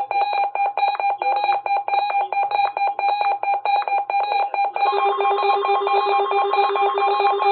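Electronic alert alarm of a weather radio receiver, set off by a NOAA Weather Radio test alert: a rapidly pulsing, buzzy beep. About five seconds in, a second, lower-pitched pulsing alarm joins it.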